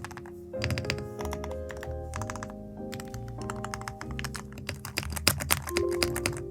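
Fast typing on a custom mechanical keyboard: dense runs of key clicks with short pauses, over background music with held notes.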